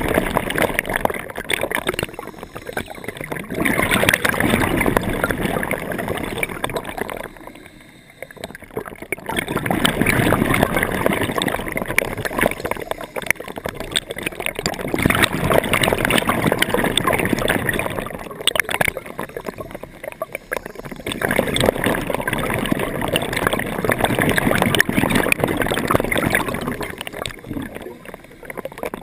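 Scuba diver's breathing through a regulator: exhaled bubbles gurgling and bursting, in swells several seconds long with brief quieter lulls between breaths.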